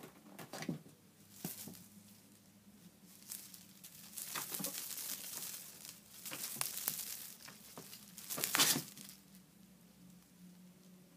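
Rustling and crinkling of a cloth cover as a kitten plays on it, in irregular bursts. The bursts come thickest in the middle and the loudest one falls about eight and a half seconds in.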